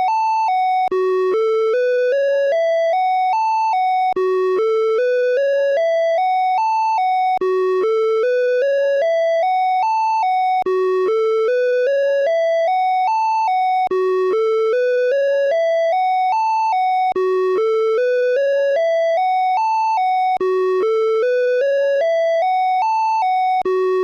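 Åland Islands emergency alert (EAS) alarm tone: a run of short electronic notes climbing step by step in pitch, then dropping back, the run starting over about every three and a quarter seconds.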